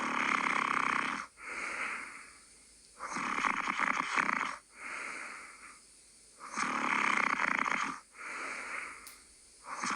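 Snoring in a steady rhythm: a loud rasping snore followed by a shorter, softer one, then a brief pause, the cycle repeating about every three and a half seconds.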